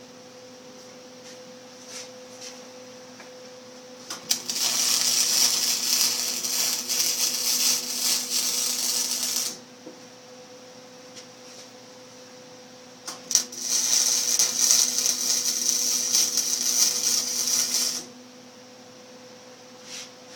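Electric arc welding: two runs of crackling, sizzling arc noise, about five seconds each, each starting with a sharp crack as the arc strikes. A steady hum sits underneath.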